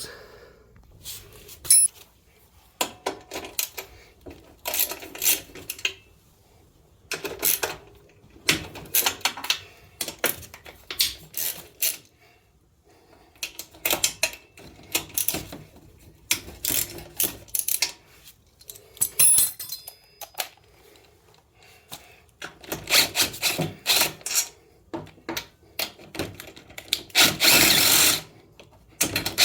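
Hand wrench work on the exhaust mounting bolts of a 1987 Honda Helix 250 scooter: irregular bursts of metal clicking and clinking as the bolts are turned out and handled.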